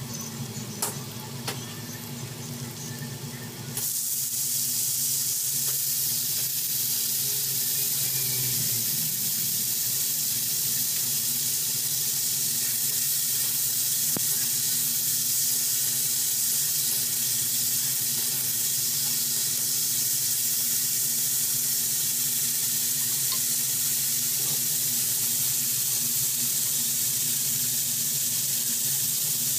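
Oil sizzling in a pan on a gas stove as sliced onions and potato sticks fry for aloo bhaja, with a couple of spatula clicks against the pan early on. About four seconds in the sizzle turns suddenly much louder and stays steady.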